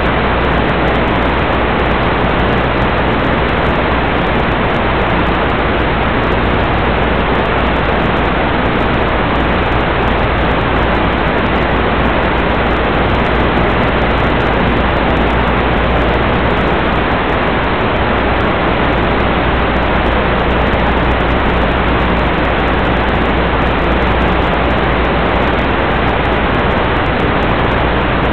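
Steady loud hiss with a low hum underneath, unchanging throughout: the static of an analog 1.2 GHz FPV video link's audio channel as recorded in the goggles.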